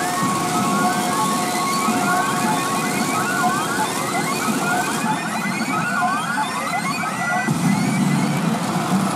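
P Abunai Keiji pachinko machine playing electronic sound effects in its RUSH mode: a run of quick rising electronic chirps over two steady held tones, stopping near the end.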